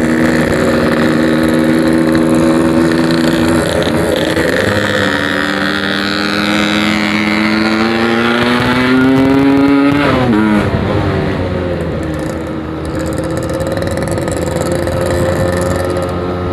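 Yamaha RX-King 135cc single-cylinder two-stroke motorcycle engine running under way. The engine note holds steady, dips about four seconds in, then climbs steadily as the bike accelerates, drops sharply about ten seconds in and settles at a lower steady note.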